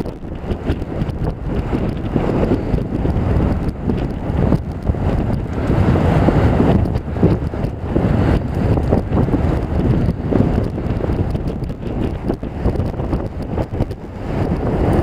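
Wind buffeting a helmet camera's microphone while riding a bicycle: a steady low rumble that swells and dips, loudest about halfway through.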